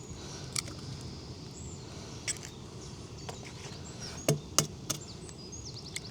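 Eggs being cracked against the rim of a cooking tin: a few sharp taps, the loudest two close together about four seconds in.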